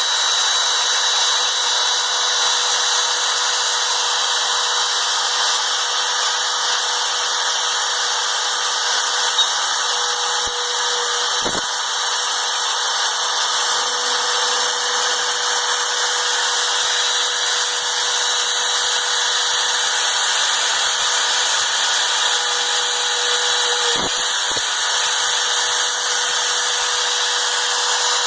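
Spindle of a DIY CNC mill running steadily with a constant whine while a 1/8-inch end mill drills holes in a metal plate, with two brief clicks partway through.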